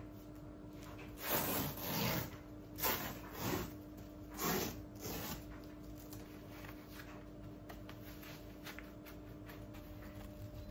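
A cleaning cloth rubbed in about six swishing wiping strokes in the first half, then only faint rustling.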